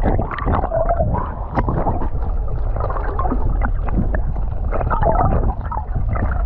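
Gurgling and bubbling water heard through a camera held underwater, muffled, with a heavy low rumble and many small clicks and pops.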